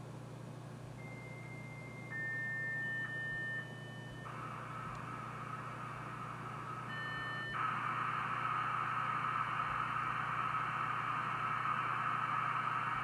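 Dial-up modem handshake: a few steady beeping tones of different pitches, then from about four seconds in a hissing, scrambled data noise. The noise gets louder about eight seconds in and cuts off suddenly at the end. A low steady hum lies underneath throughout.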